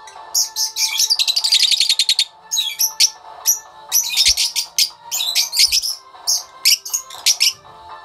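Fischer's lovebirds chattering with loud, shrill, rapid chirps and squeaks. There is a quick run of repeated chirps between about one and two seconds in.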